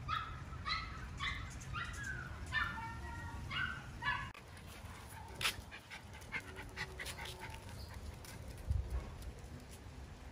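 Miniature Schnauzer puppy whining in a quick run of short, high-pitched cries, about two a second, for the first four seconds. After that only scattered light clicks and a single low thump.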